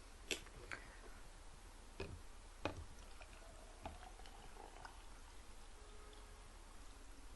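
Faint, scattered clicks and light knocks, a handful spread a second or so apart, with a quiet room behind them.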